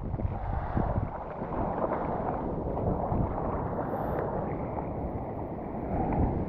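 Strong offshore wind blowing across the microphone over sloshing seawater, a steady rushing noise.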